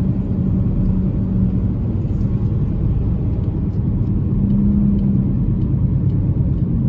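Steady road and engine rumble inside a moving car's cabin, with a low hum that swells briefly about halfway through.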